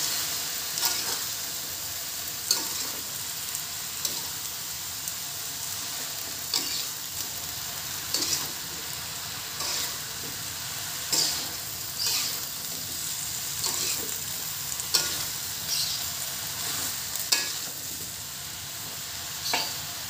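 Napa cabbage sizzling in a wok over a steady frying hiss, while a metal spatula stirs and tosses it, scraping and clacking against the pan every second or two.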